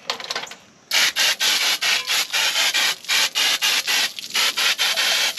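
Refillable compressed-air sprayer with its nozzle removed, blasting brake cleaner onto a drum-brake backing plate in a high-volume hissing spray. The spray starts about a second in and comes in short, rapid spurts, about three a second.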